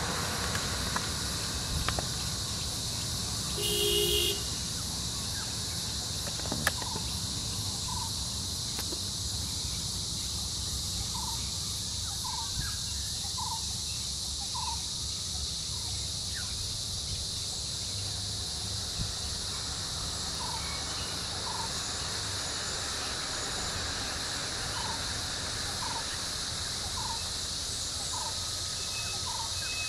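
Outdoor roadside forest ambience: a steady insect buzz, short bird chirps recurring every second or so, and a low rumble underneath. A brief call with several tones stands out about four seconds in.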